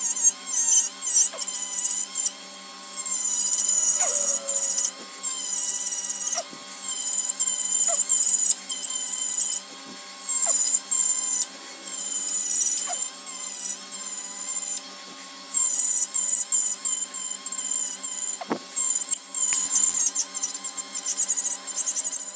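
High-speed rotary tool with a small cutter bit carving into a wooden goblet stem: a high-pitched whine that comes and goes many times in short stretches as the bit is worked against the wood.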